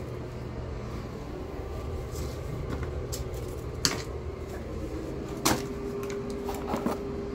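Crumpled toilet paper and rubbish being handled and dropped into a plastic wastebasket: light rustling over a steady low hum, with two sharp knocks a little before and after the middle.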